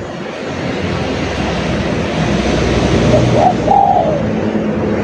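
Spotted dove cooing: two short notes a little past halfway, the second falling in pitch, over a steady hiss that grows louder.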